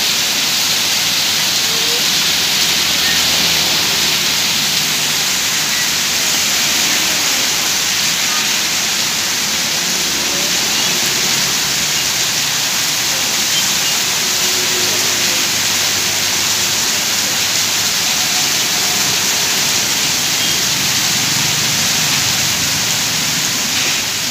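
Heavy downpour: a steady hiss of rain on a flooded street, with water pouring off a roof edge and splashing onto the pavement close by.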